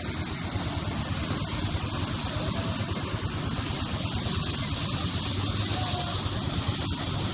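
Steady rushing of a waterfall: an even wash of falling water with a low rumble underneath, and a few faint short chirps.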